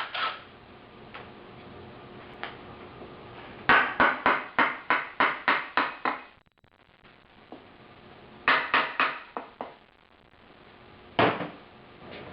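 Hand-tool work on a rotary engine during teardown: two runs of sharp metallic clicks, about four a second, then a single knock near the end.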